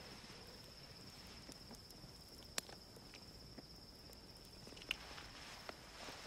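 Quiet night ambience: crickets trilling steadily on one high pitch. A few sharp clicks break in, the loudest about two and a half seconds in and another near five seconds.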